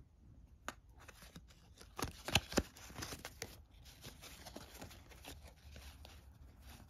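Stiff cardboard game cards handled and fanned out in the hands: light rustling and clicking of card edges sliding against each other, with a few sharper snaps about two seconds in.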